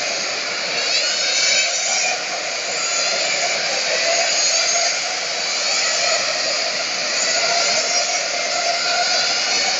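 Several radio-controlled race cars lapping a track, their motors making high-pitched whines that overlap and rise and fall in pitch as the cars speed up and slow down.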